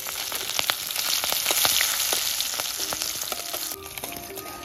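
Whole spices and green chilies crackling and hissing as they are roasted in a kadai and stirred with a spatula. The sizzle breaks off near the end.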